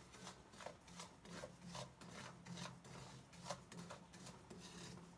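Wooden spatula stirring coarse salt around a stainless steel wok as it is dry-roasted: faint, gritty scraping strokes, about two a second.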